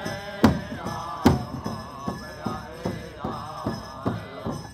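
Native American powwow drum struck in a steady beat, about two to three strokes a second, with a group of singers chanting over it.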